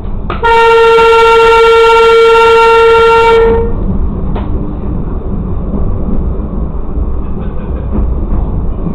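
Railcar horn sounding one long, steady single-note blast of about three seconds, a warning as the railcar nears a road crossing that has no active signals. After it, the railcar's low running rumble as it rolls slowly along the track, with a few faint clicks from the rails.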